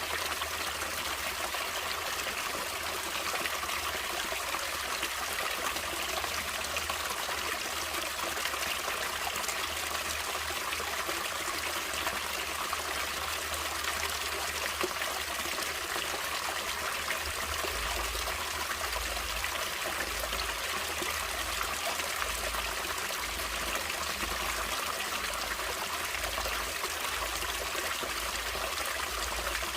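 Water in a natural stream flowing steadily, an even, continuous rush and trickle.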